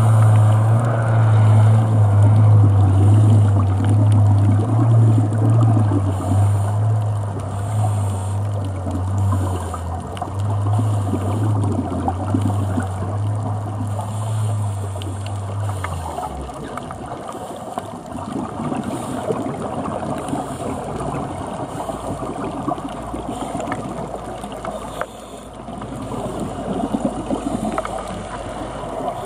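Underwater sound: a boat engine's steady low drone carried through the water, which cuts off about halfway through, over the constant bubbling and gurgling of a scuba diver's exhaled air.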